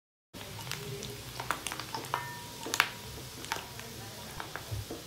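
Strips of cheese-stick dough deep-frying in hot oil in a wok: a steady sizzle with many irregular sharp pops and crackles. It starts abruptly a moment in.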